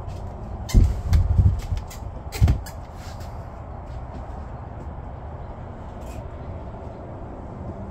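A few dull thumps and knocks within the first two and a half seconds, then only a steady low background rumble.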